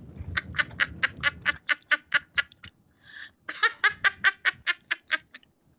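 A person laughing in two long bursts of quick, repeated 'ha' pulses, with a short pause between them.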